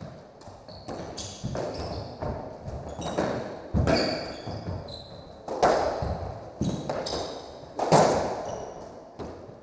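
Squash rally: the ball smacked by rackets and off the walls about once a second, each hit echoing in the court, with rubber-soled shoes squeaking on the wooden floor between hits.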